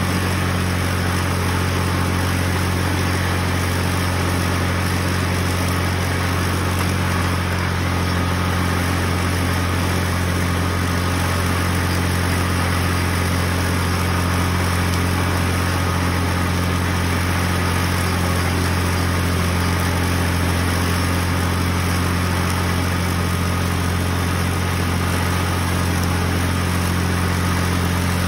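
Small tractor engine running steadily while driving a belt-and-pulley mower through strawberry plants: a constant low drone with a strong low hum that does not change.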